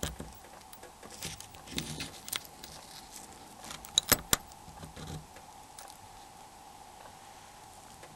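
Small sharp clicks and light rattles from a camera removal tool and the phone's circuit board as the camera module of a Nokia 6300 is unlocked and lifted out. The loudest clicks come close together about four seconds in, over a faint steady hum.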